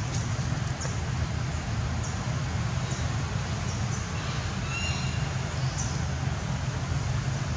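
Outdoor background: a steady low rumble with brief, high bird chirps now and then.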